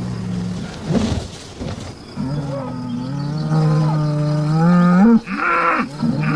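A bull bellowing: one long, low drawn-out call that rises in pitch at its end, followed by shorter, rougher bellows, typical of rival bulls provoking each other before a fight.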